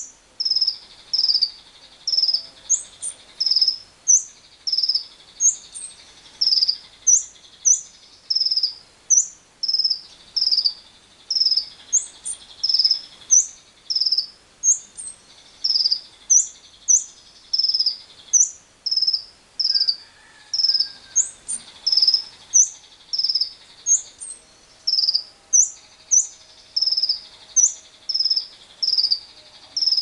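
Lovebird giving short, high-pitched chirps over and over, about two a second, with a steady insect drone behind them.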